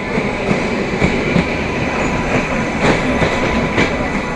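Train running along the track, its wheels clacking irregularly over rail joints above a steady rumble.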